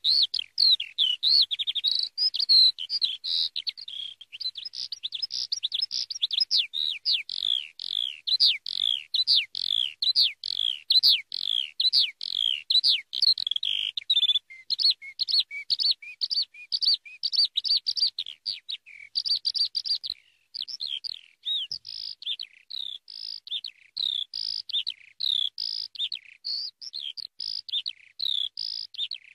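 Eurasian skylark singing: a long, unbroken stream of rapid high chirps, trills and warbles, with a brief pause about twenty seconds in.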